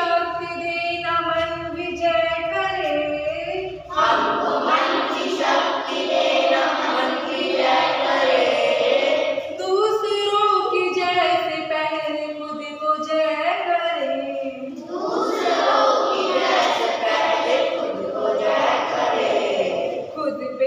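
A group of schoolchildren singing a prayer together in unison, held sung lines alternating with denser, faster passages.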